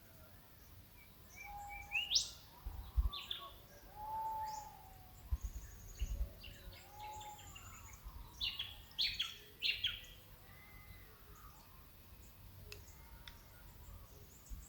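Several wild birds calling in Australian bush countryside in the early morning: short rising chirps, whistles and quick trills overlapping, busiest in the middle and thinning out towards the end. A few low muffled thumps come under the calls.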